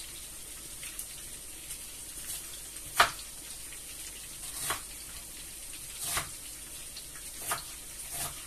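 Food frying in hot oil in a pan, a steady sizzle broken by a few sharp taps or pops, the loudest about three seconds in.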